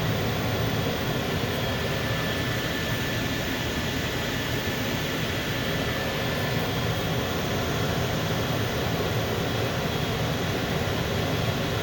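Furnace running and firing: a steady rush of burner and fan noise with a faint, steady high whine.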